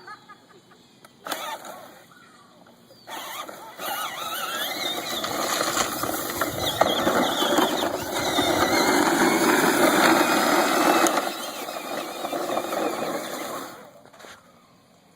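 A kids' battery-powered ride-on toy skid steer, upgraded to run on 12 volts, driving along with its electric drive motors and gearboxes whining. The whine wavers in pitch, grows louder from about four seconds in and drops off near the end.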